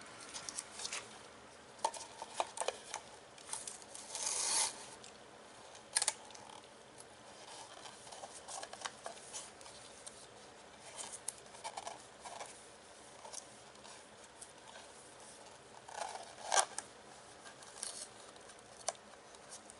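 Masking tape being pulled off the roll and torn while it is pressed around a motorcycle mirror housing: irregular short rips, rustles and handling clicks, with a longer pull about four seconds in.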